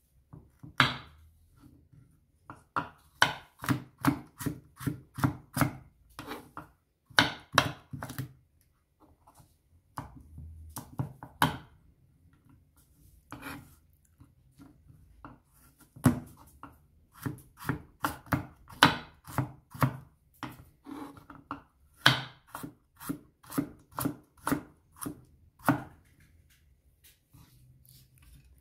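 Chef's knife slicing raw carrot into thin strips on a wooden cutting board: quick runs of knocks against the board, about three a second, broken by short pauses, stopping a little before the end.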